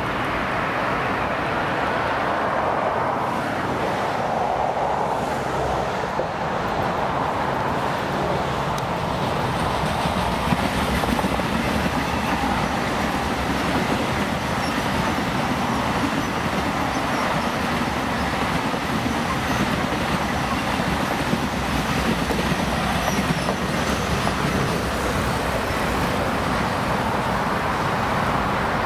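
EG2Tv "Ivolga 3.0" electric multiple unit passing at speed: a steady rush of wheels rolling on rails, with a few sharp clicks near the middle.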